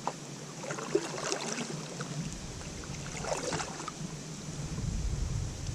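Water splashing and sloshing against a kayak, in two short spells about a second in and about three seconds in, over a steady low hiss.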